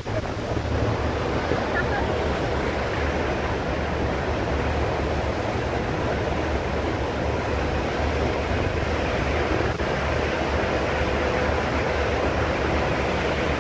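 Steady low rumble of a passenger ferry's engine under way, mixed with the constant rush of the churning propeller wake behind the stern.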